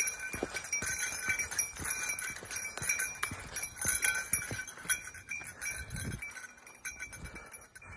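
Bear bell jingling steadily as a hiker walks, with footsteps on a dirt forest trail.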